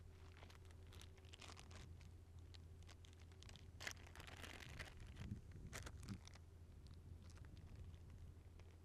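Near silence, with faint scattered clicks and crackles over a low steady hum.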